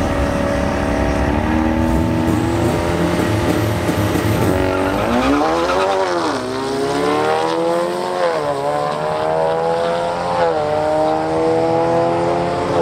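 Two drag cars, a Subaru Impreza wagon and a Ford Mustang, launching from the start line at full throttle. Engine pitch holds for the first few seconds, then climbs and drops back about three times as they shift up through the gears down the strip.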